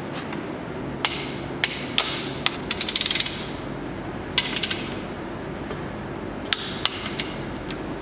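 Sharp metallic taps and clicks of hand tools working on an engine, about ten scattered strikes with a quick run of clicks near the middle, over a steady background hum.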